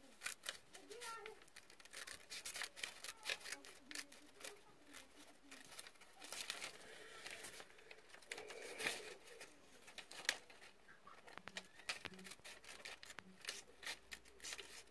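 Scissors cutting through a sheet of paper: a run of irregular, crisp snips with the paper rustling as it is turned.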